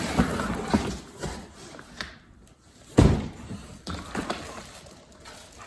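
Unboxing handling noise: parts and packaging being moved about, with one sharp thump about three seconds in and a few lighter knocks after it.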